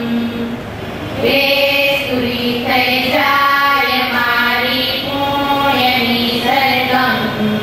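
Group of girls singing a prayer together in unison, a held, chant-like melody. A short break between lines comes near the start, and the singing picks up again about a second in.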